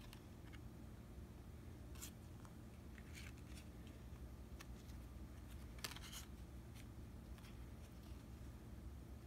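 Faint slides and flicks of Pokémon trading cards being picked up and laid onto a pile, a few brief card-on-card swishes, the longest about six seconds in, over a low steady hum.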